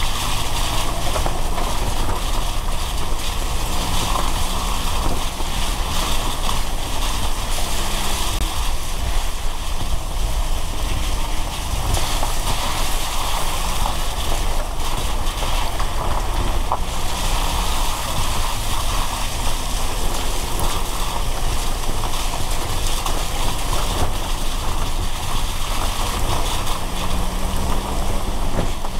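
Car driving in rain: a steady hiss of rain and tyres on the wet road, with a low engine hum underneath.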